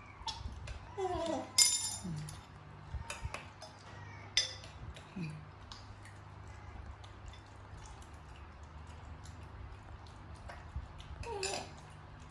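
Scattered clinks and knocks of dishes and utensils being handled, loudest in a sharp clatter about a second and a half in and a single knock about four seconds in. A few short falling voice sounds come through over a low steady hum.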